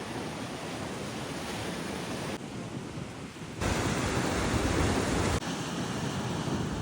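Steady rushing of water with wind noise on the microphone. The level changes suddenly three times.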